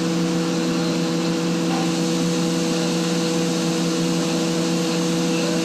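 Atlas Copco GA160 rotary screw air compressor running at about 8 bar outlet pressure: a steady, even hum of several held tones over machine noise. Its controller switches from load to unload here without an audible change, on a unit whose owner says its load/unload settings are wrong and pressure recovers too slowly.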